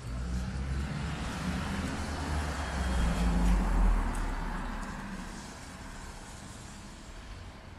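A car passing on a wet street: tyre hiss and engine rumble swell to a peak about halfway through, then fade away.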